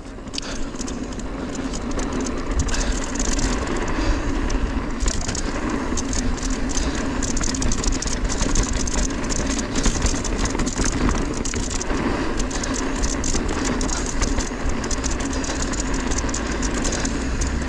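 Mountain bike descending fast through a rock garden: tyres rolling and skittering over rock and dirt, with the frame and drivetrain rattling at every hit. Wind buffets the action camera's microphone with a low rumble. It grows louder over the first couple of seconds as speed builds, then holds.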